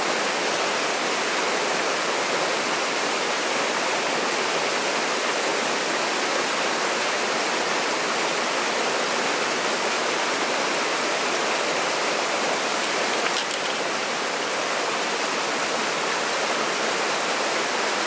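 Waterfall pouring over rock ledges into a plunge pool on a mountain creek: a steady, even rush of falling and splashing water.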